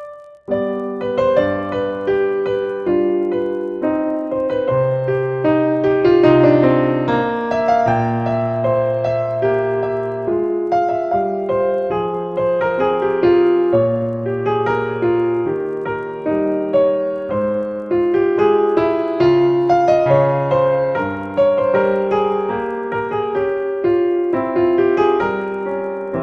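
Background piano music: a slow melody of single notes over held bass notes, beginning after a short break about half a second in.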